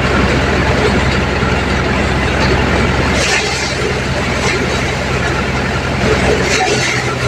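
Mahindra 575 DI tractor's diesel engine running steadily under load, powering a paddy thresher as bundles of rice stalks are fed into its drum. A brief rushing hiss of threshed straw breaks through now and then.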